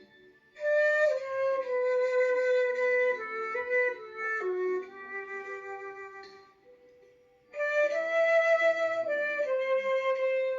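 Flute playing a slow melody in two phrases over a quieter accompaniment track. The flute enters about half a second in and drops out briefly just past the middle, leaving only the soft accompaniment, then comes back in.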